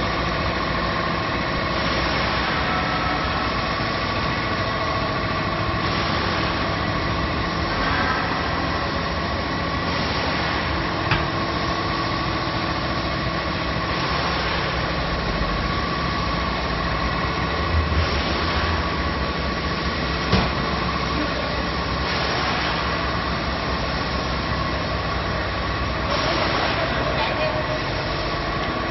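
Wafer production line machinery running steadily, a continuous mechanical din with a steady whine. A few short clicks or knocks come through in the middle.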